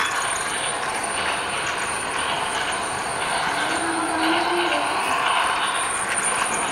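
Toy train running around its plastic track, a steady mechanical whir and rattle of the locomotive's motor and wheels.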